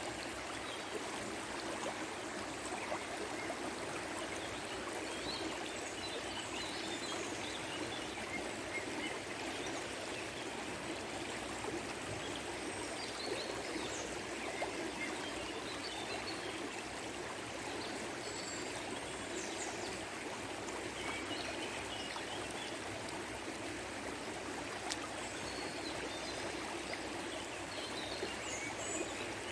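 A stream of water flowing and murmuring steadily, with small birds chirping now and then.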